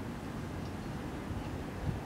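Low steady rumble of a distant DE11 diesel-hydraulic shunting locomotive running in the freight yard, with wind buffeting the microphone in uneven low gusts.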